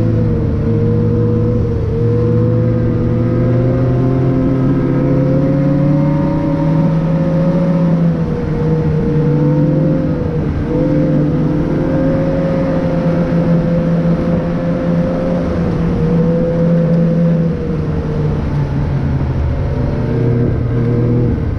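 A vehicle engine running steadily under way, its pitch rising and falling slightly with small changes in speed.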